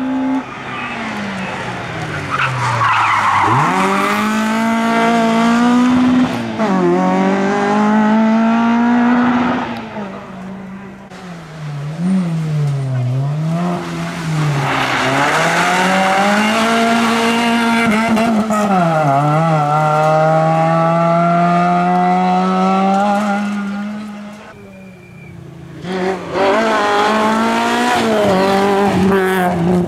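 Rally cars, Peugeot 106s among them, driven flat out on a gravel stage: the four-cylinder engines rev hard, the pitch climbing through each gear and dropping at every shift and lift, and swooping up and down through the corners. Tyres scrabble and skid on the loose gravel. There is a brief lull about 25 seconds in before the next car arrives at full throttle.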